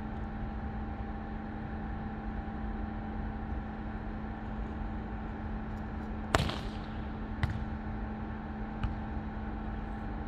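A steady hum with a couple of held tones over a low rumble, broken by three sharp cracks: the loudest a little past the middle, then two smaller ones over the next two and a half seconds.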